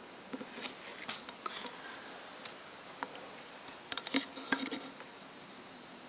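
Scattered soft clicks and rustles of handling over a faint steady hiss, in two clusters: a few in the first second and a half, and a louder bunch about four seconds in.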